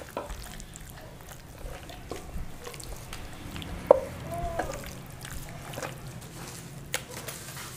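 Wet squelching and soft slapping of raw chicken thigh pieces being worked by hand in an oily spice marinade in a clay bowl. One sharp click about four seconds in, and another near the end.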